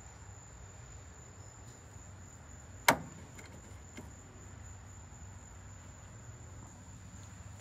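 A single sharp click about three seconds in, a small tool or part knocked against the engine during hand work. Under it, a faint steady high whine and low hum.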